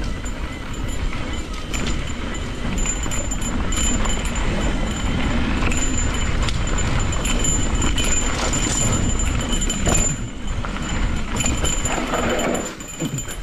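Cannondale Scalpel full-suspension mountain bike riding over a rough dirt trail: tyres rolling over rocks and roots and the bike rattling, with a steady low rumble of wind on the microphone.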